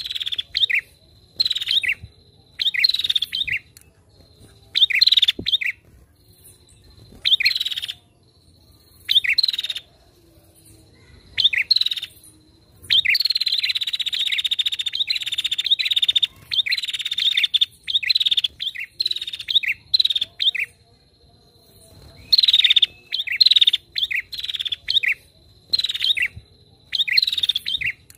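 Female prinia (prenjak) calling: short bursts of sharp, quickly repeated chirps separated by brief pauses, with one longer unbroken run of rapid chirping near the middle.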